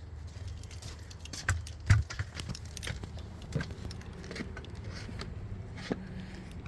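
Clicks and knocks of a plastic roof-rail cover being handled and pressed into place, with one louder knock about two seconds in.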